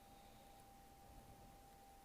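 Near silence: faint steady hiss with a thin, steady high-pitched tone.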